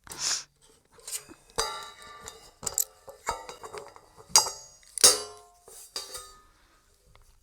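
Metal drum hardware being handled: a series of irregular clinks and knocks, several of them briefly ringing.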